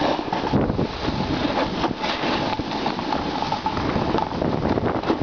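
Wind buffeting the camera's microphone, with the hiss and scrape of sliding over snow, while moving down a ski slope.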